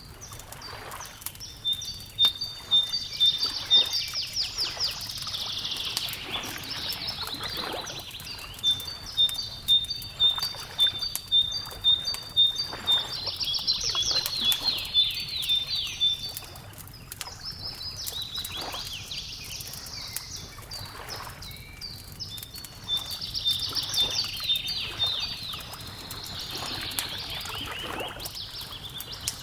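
Small songbirds singing in bouts of repeated high whistled notes and quick trills, over a wood fire crackling with scattered sharp pops.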